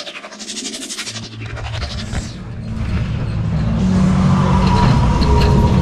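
Whooshing sound effects from a video intro, then a low rumble that swells up from about a second in and holds steady: a ghost train car rolling along its track.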